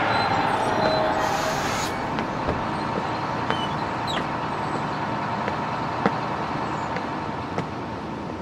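A city bus running close by amid street traffic, with a short hiss of air brakes about a second in.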